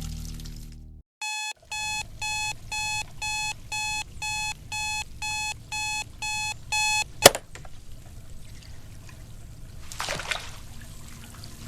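Electronic alarm clock beeping, about two beeps a second, a dozen times, then cut off by a sharp click about seven seconds in. A brief soft rustle follows near the end.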